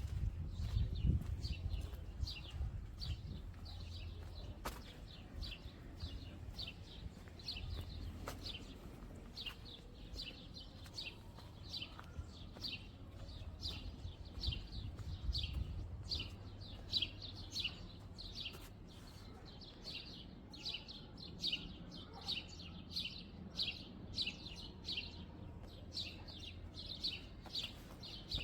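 Small birds chirping steadily, short high chirps about two or three a second, over a low street rumble.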